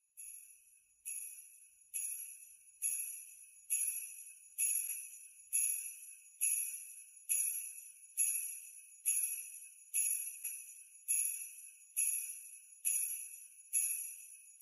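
Jingle bells shaken in a steady beat, a little faster than once a second, each shake ringing briefly. The first few shakes build up in loudness.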